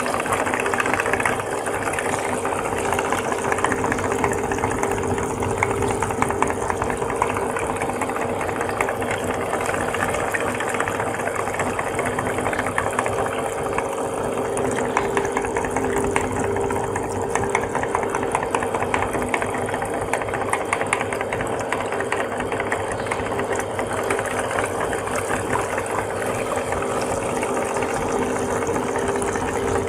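Electric meat grinder running steadily with a motor hum, grinding jelly with a fine, continuous crackle over the hum.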